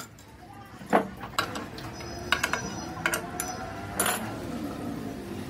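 Sharp metal clicks and knocks, about half a dozen spaced over a few seconds, as hand tools and the steel levers and bracket of a truck air-brake pedal valve assembly are handled and fitted together.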